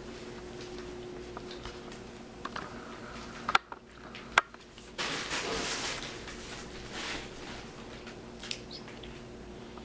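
Close handling noise: two sharp knocks a little under a second apart near the middle, then about two seconds of rustling, over a steady low hum.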